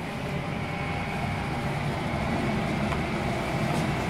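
Steady hum and rushing air of laboratory ventilation and running instruments, with a faint high steady whine above it.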